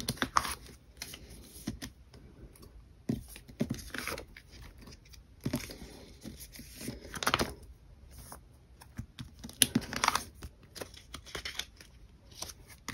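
Clear plastic binder pocket pages crinkling as photocards slide in and out of them, with sleeved cards being handled: short, irregular rustles and scrapes with brief pauses between.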